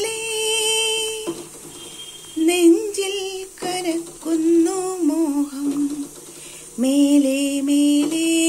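A woman singing a slow melody in long held notes with vibrato, phrase by phrase with short pauses between.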